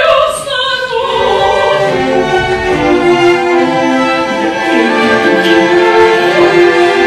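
Opera orchestra playing, with bowed strings leading and held notes, after a singer's phrase falls away in the first second.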